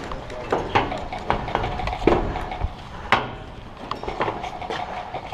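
Irregular knocks and clatter of hard objects being handled, with two louder knocks about two and three seconds in.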